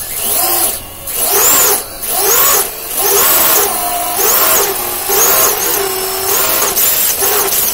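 Four Racerstar BR2207S 2500 kV brushless motors on a 5-inch FPV quadcopter, propellers off, spun up from the transmitter's throttle stick in short blips. About seven electric whines, each rising in pitch, holding briefly and falling away.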